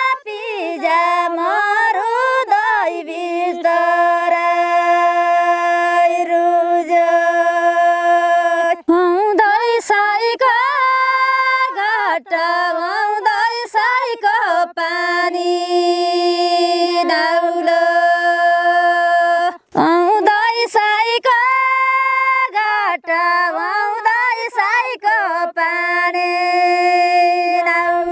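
A woman singing thadi bhaka, a far-western Nepali folk song, unaccompanied, in long held notes with ornamented slides between them. She pauses for breath about nine seconds in and again near twenty seconds.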